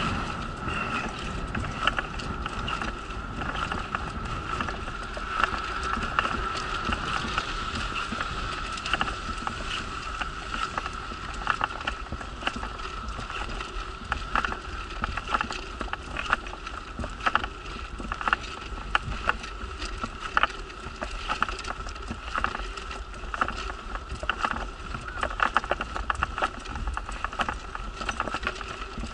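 Wheelchair rolling along a paved path: a steady high whine throughout, with frequent small rattles and knocks as it goes over the surface.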